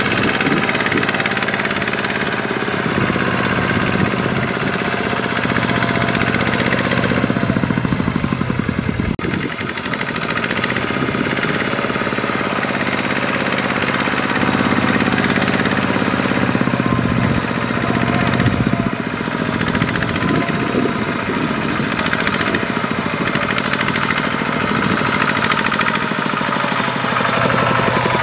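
Kubota ZT155 single-cylinder diesel of a two-wheel walking tractor running steadily under load, pulling a trailer of rice sacks through mud.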